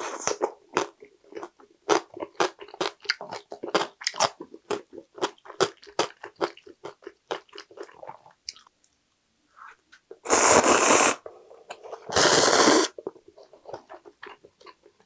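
Close-miked chewing of crunchy cucumber kimchi, a dense run of small wet crunches and clicks. About ten and twelve seconds in come two loud slurps of ramen noodles, each about a second long, followed by softer chewing.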